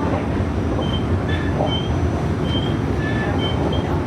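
New York City subway train running, heard from inside the car: a steady rumble of wheels on rail, with short high squeals from the wheels every so often.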